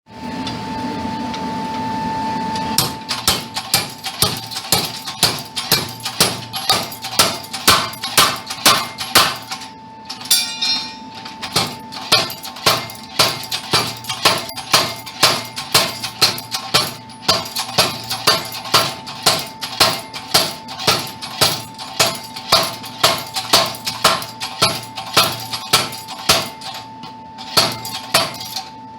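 Homemade spring-loaded treadle hammer with a 14-pound head striking a piece of steel in rapid heavy blows, about two a second, with a short break about ten seconds in. A steady tone runs underneath the blows.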